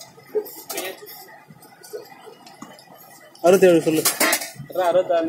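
Metal ladles clinking and scraping against large aluminium curry pots during serving, with a few sharp clinks in the first second and scattered small knocks after. About three and a half seconds in, a loud voice calls out over it.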